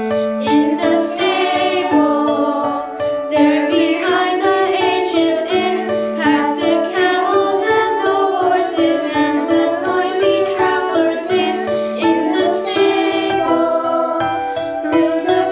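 Children's choir singing a carol over instrumental accompaniment, a virtual choir mixed from the children's separate home recordings.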